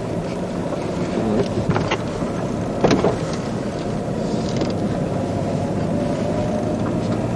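Car driving, heard from inside the cabin: a steady engine and road rumble, with a couple of short sharp knocks about two and three seconds in.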